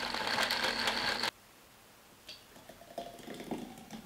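KitchenAid countertop blender running at speed, blending frozen raspberries, ice, tofu and almond milk, then cutting off suddenly about a second in. After that, faint clinks and the soft sound of the thick smoothie being poured into a glass.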